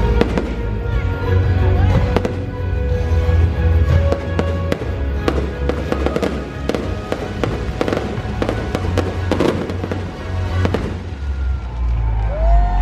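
Aerial fireworks bursting and crackling in a rapid series of sharp bangs, with music playing throughout.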